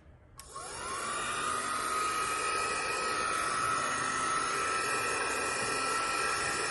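Hair dryer switched on: its motor spins up with a whine rising over about half a second, then runs steadily with a loud rush of air, and cuts off suddenly.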